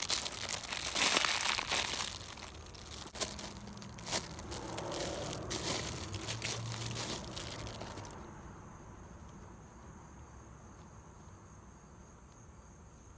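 Packaging crinkling and tearing as a squishy package is opened by hand, loudest in the first couple of seconds, then in scattered crackles. It stops about eight seconds in, leaving only a faint steady high whine.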